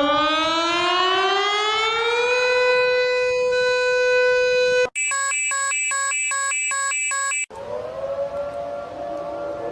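Emergency alert alarm tones played back to back. A siren tone rises in pitch for about two and a half seconds and then holds steady. About five seconds in it cuts off abruptly and a repeating electronic beeping pattern takes over, roughly two and a half beeps a second; that stops suddenly about two and a half seconds later, and a quieter wavering siren-like tone begins.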